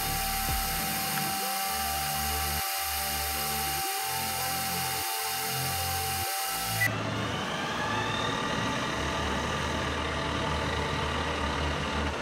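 Metal lathe turning down the shank of a threaded rod, a steady machining whine with high tones, mixed with background music. The sound changes abruptly about seven seconds in, losing its high end.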